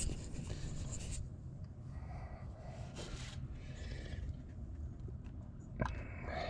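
Light rubbing and scraping of a plastic funnel being held and shifted in a second funnel, and a plastic bottle of automatic transmission fluid being handled, with a short sharp tap near the end.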